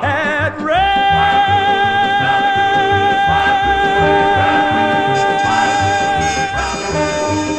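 A male singer holds one long note at the end of a song, over a band with a steady low beat.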